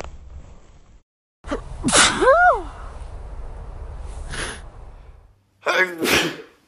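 A person sneezing twice: a loud voiced sneeze about two seconds in whose cry rises then falls in pitch, and another loud voiced sneeze near the end.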